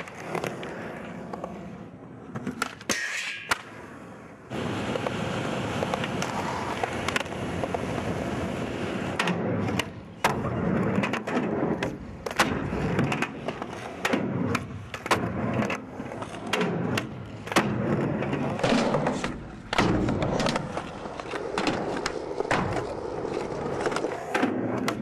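Skateboard wheels rolling over concrete, with many sharp clacks of the board being popped and landing during tricks.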